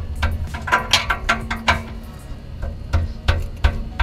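Steel combination wrench clicking and clinking irregularly, a few sharp clicks a second, as it is worked on a wideband oxygen sensor to tighten it into its bung in the exhaust pipe.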